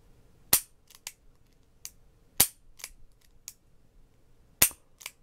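Stainless double-action revolver dry-fired with double-action trigger pulls on an empty chamber. Three sharp snaps of the hammer falling, about two seconds apart, with softer clicks of the action between them.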